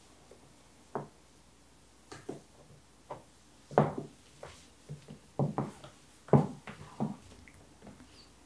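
Casadei Blade stiletto heels clicking on a wood-grain floor in about a dozen uneven steps.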